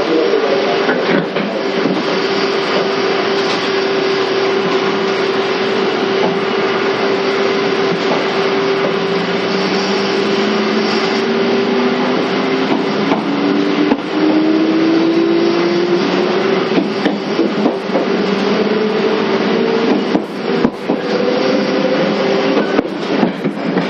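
Inside the motor car of a 485-series electric train while it runs: a steady roar of wheels on rail with a steady hum. From about nine seconds in, a traction-motor and gear whine rises steadily in pitch as the train gathers speed. A few sharp knocks come near the end.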